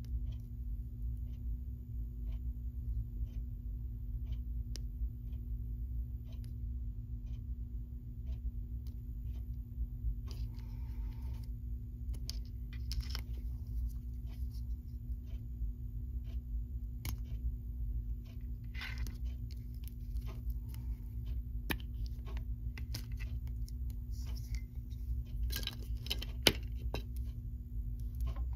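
Small plastic and metal parts of an Advanced Bionics Neptune cochlear implant processor being handled and taken apart: scattered light clicks and short rustles, with one sharp snap near the end. A steady low hum runs underneath.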